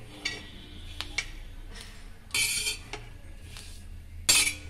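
A metal spatula scraping across a flat metal griddle (tava), pushing dry-roasted grated coconut, onion and whole spices onto a plate. A few light clicks come first, then a louder scrape about two and a half seconds in and another short one near the end.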